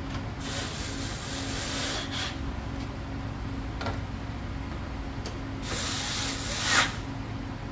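Plastic truck door trim panel rubbing as it is handled, then a cordless drill-driver briefly running its screws snug, loudest shortly before the end.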